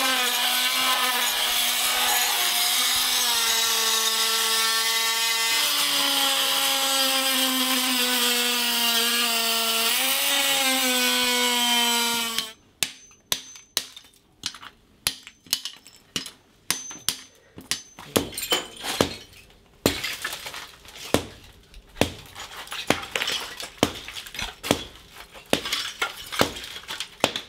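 A small handheld power tool runs steadily against ceramic floor tile, its pitch dropping and rising as it bites and eases off. About twelve seconds in it stops abruptly. What follows is a long, irregular run of sharp cracks and knocks, getting heavier later on, as the tiles are chipped up by hand with a pry bar and smashed with a sledgehammer.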